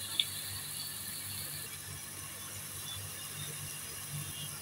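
Ground onion, tomato and spice paste frying in oil in a coated kadai, sizzling steadily, with one faint click just after the start.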